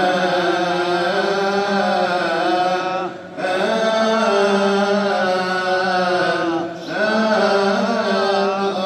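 A deacon's solo Coptic liturgical chant: long held, ornamented vowel lines with no words heard, broken by two short breaths about three and seven seconds in.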